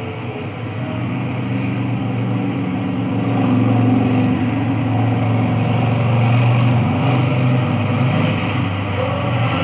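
A low, steady engine drone that swells over several seconds and then eases slightly near the end, like a heavy vehicle passing unseen.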